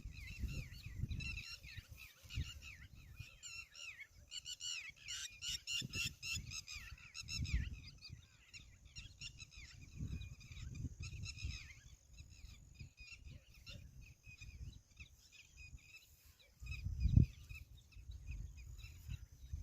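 Flock of geese honking in rapid, overlapping calls, busiest about five to eight seconds in and thinning out after about twelve seconds. Low buffeting runs underneath, with a loud thump about seventeen seconds in.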